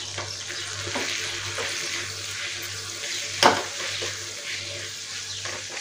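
Okra sizzling in a non-stick kadai while a wooden spatula stirs in roasted gram flour, scraping through the mix, with one sharp knock about three and a half seconds in.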